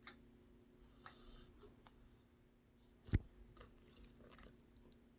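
Quiet sounds of a sleeping cat: faint soft breaths and a few small clicks over a low steady hum, with one sharp tap about three seconds in.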